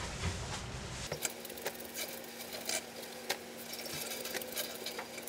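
Clothes hangers clicking and knocking on a closet rail, with fabric rustling, as garments are pulled off the rail one after another in irregular quick clicks.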